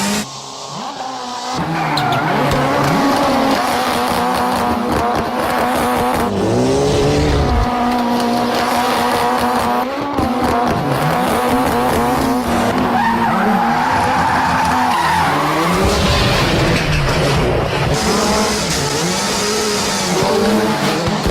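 Ken Block's Ford Fiesta rally car driven hard, its engine revving up and falling back again and again with quick gear changes, mixed with tyre skidding noise.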